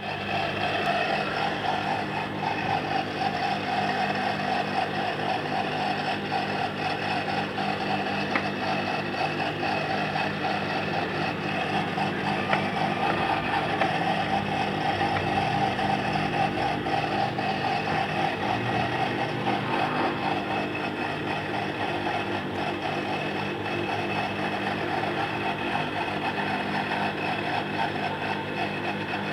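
Typical industrial sewing machine running steadily, its motor humming under a fast, even clatter of stitching.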